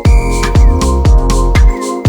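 Electronic dance music in a house style, with a four-on-the-floor kick drum beating about twice a second under hi-hats and sustained synth chords.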